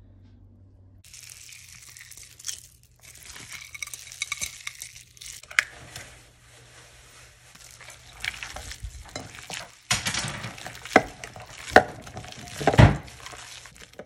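Bare hands kneading and squeezing raw ground meat mixed with rice for meatballs, a wet, crackly squishing. Several louder squelches come in quick succession near the end.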